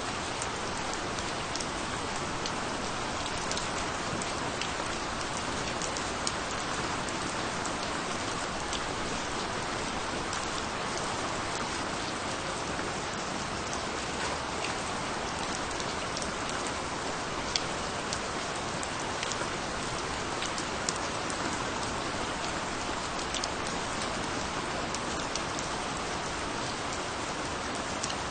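Steady rainfall, an even hiss with scattered individual drop hits standing out now and then.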